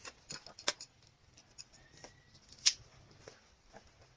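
Scattered small clicks and taps of a cheap power bank's casing being opened and handled, with one sharper click near the end.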